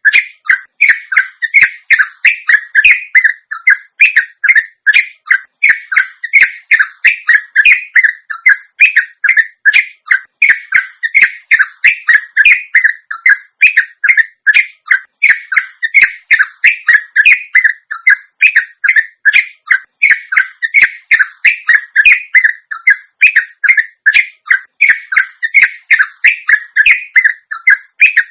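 Yellow-vented bulbul (trucukan) giving a long unbroken 'ropel' song: a fast, steady run of short chattering notes, about three to four a second.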